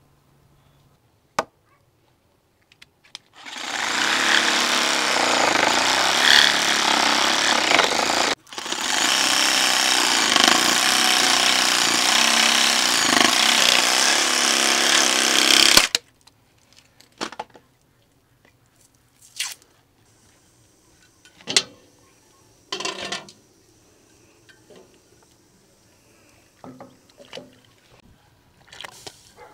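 Bosch electric saw cutting through an ostrich leg, bone and meat, in two long runs of about five and seven seconds with a brief stop between them, then cutting off suddenly. Scattered knocks and clinks follow.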